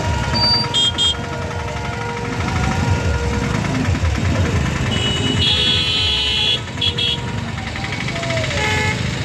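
Slow traffic on a waterlogged road: motorcycle and car engines running under a steady low rumble. Vehicle horns honk, two short beeps about a second in and a longer honk around the middle.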